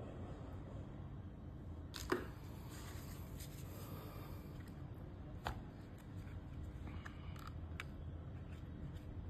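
A few small clicks and a short rustle over a steady low background hum: small parts and tools being handled while working on a remote-control car's main shaft bearing. The sharpest click comes about two seconds in, another near the middle, and fainter ticks near the end.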